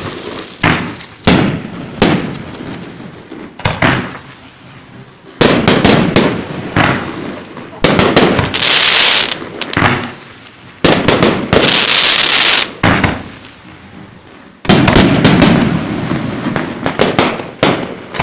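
Fireworks display: a rapid series of sharp bangs from launches and bursting shells, each fading away, with two stretches of hiss about nine and twelve seconds in and denser crackling near the end.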